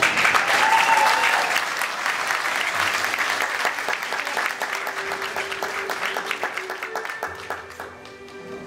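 Audience applauding, with a dense patter of many hands clapping that fades away over several seconds.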